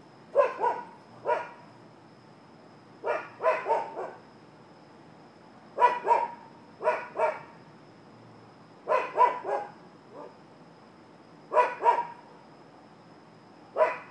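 A dog barking in short bursts of two to four barks, a new burst about every three seconds, over a faint steady high-pitched tone.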